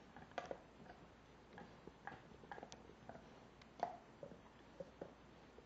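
A Rottweiler gnawing a pork bone: faint, irregular clicks and cracks of teeth on bone, about a dozen, the loudest a little under four seconds in.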